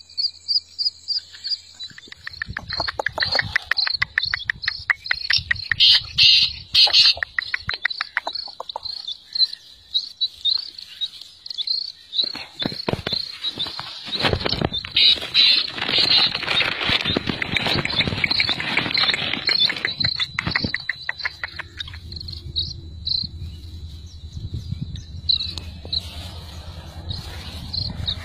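Black francolin chicks peeping: a string of short, high-pitched peeps a few times a second, with two stretches of denser, faster chirping.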